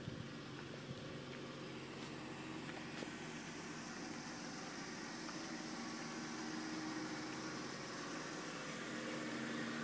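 Audi A6 sedan's engine idling steadily, an even hum.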